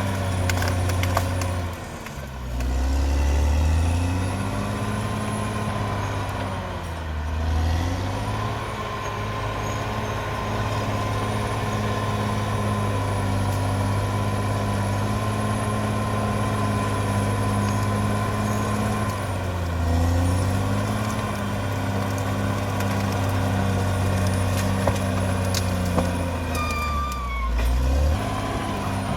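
Caterpillar D6R XL bulldozer's diesel engine working under load. Its pitch sags and recovers about four times as it lugs and picks up again, with a thin high whine running alongside.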